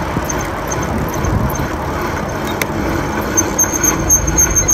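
Wind rumbling on the microphone of a camera riding on a moving bicycle, a steady rushing noise with heavy low buffeting. A fast, high, even ticking comes in about three and a half seconds in.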